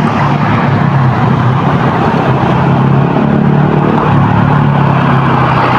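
A bus engine running loudly with a steady low drone.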